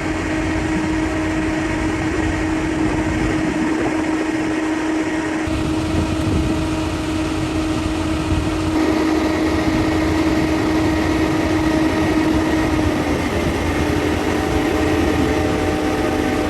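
Heavy earthmoving machinery running steadily: a constant engine hum over a low rumble, the sound changing abruptly about five and nine seconds in.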